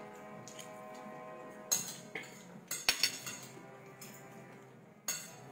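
Cutlery clinking against dishes as someone eats, a few sharp clinks spread out over faint background music.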